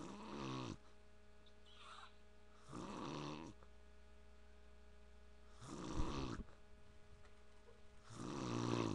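A man snoring in his sleep: four pitched snores, each under a second long, coming about every two and a half to three seconds. The third ends in a sudden louder snort.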